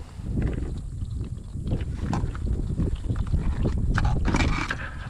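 Wind rumbling on the microphone, with scattered clicks and scratches of live blue crabs shifting and scraping against each other and the cooler walls, and a denser patch of crackling about four seconds in.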